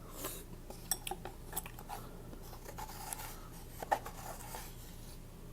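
Close-miked noodle eating: utensils clicking and scraping against a bowl in a string of short clicks and rustles, the sharpest click about four seconds in.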